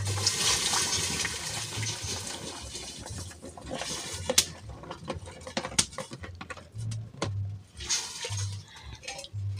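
Shredded izote flowers tipped from a plastic tub into a pot of heating water, splashing and sloshing for the first few seconds. Then scattered sharp clicks and knocks.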